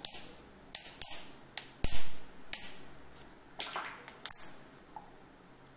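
A small metal tool tapping on the stainless steel mixer jar to knock the seized blade shaft out of its bushing: about eight sharp, ringing metallic clinks at uneven intervals, the loudest about two seconds in, stopping after about four and a half seconds.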